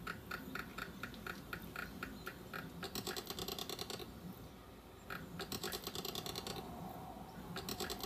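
Imagined Pinacosaurus (ankylosaur) call: a faint, fast run of short chirp-like pulses, about five a second, in two spells with a brief lull a little past the middle.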